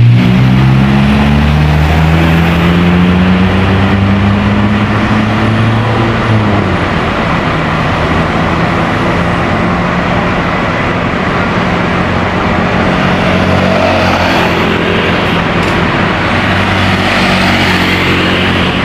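Motor vehicle engine running over road noise: its pitch climbs steadily for about six seconds as it accelerates, drops suddenly as at a gear change, then runs on steadily.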